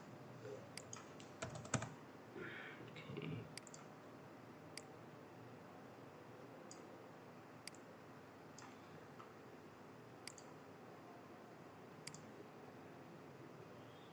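Computer mouse and keyboard clicks: a quick run of clicks in the first two seconds, then single clicks every second or two over faint room hiss.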